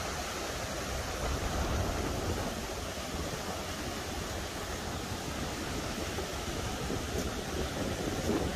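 Surf breaking and washing up a pebbly beach in a steady rush, with wind buffeting the microphone.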